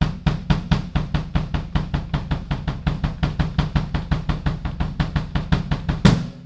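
Bass drum played with the heel-toe technique: a fast, steady stream of kick-pedal strokes. It ends on a louder final stroke that rings briefly.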